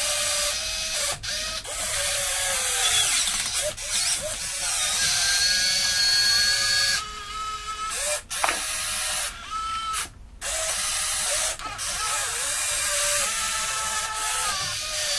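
Motors of a 1:14-scale RC Cat 330D excavator whining as it digs and lifts. The pitch rises and falls with each movement, and the sound cuts out briefly a few times.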